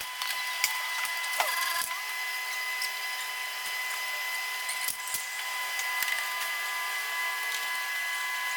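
Sped-up workshop noise from hands-on car repair work: a steady high-pitched whine with scattered clicks and tool clatter, and a brief falling squeal about a second and a half in.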